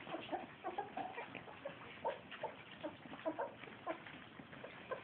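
A litter of puppies eating oatmeal from a dish: faint, irregular little smacking and squeaking sounds.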